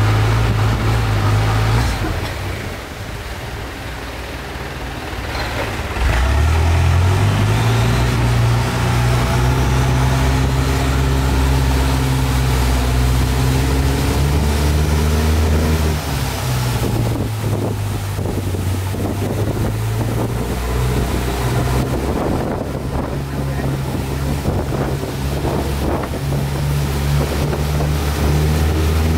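Motorboat engine running at speed, with wind and water noise. It eases off about two seconds in, revs back up with a rise in pitch around six seconds, and then runs steadily.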